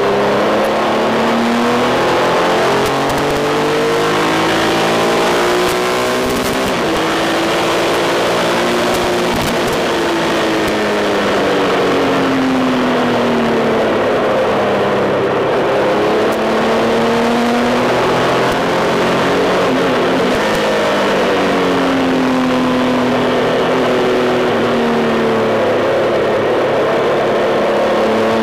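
Triumph Tiger 1200's three-cylinder engine running hard on the move, its pitch rising under throttle and falling again through gear changes and corners, with a steady rush of wind noise.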